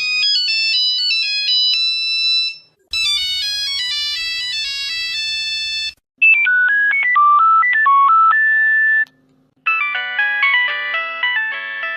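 Nokia mobile phone ringtones played one after another: four short melodies in turn, each lasting about three seconds, with a brief break between them.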